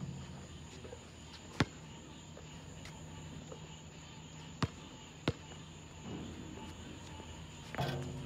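Basketball bouncing on an outdoor asphalt court: single sharp bounces, one about a second and a half in and two more close together past the middle.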